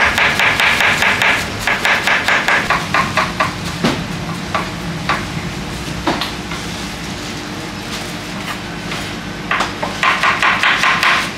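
Kitchen knife chopping shredded cabbage on a plastic cutting board: a fast, even run of knocks, several a second. About a third of the way in the chopping gives way to scattered single knocks and clatter, then the fast knocking starts again near the end.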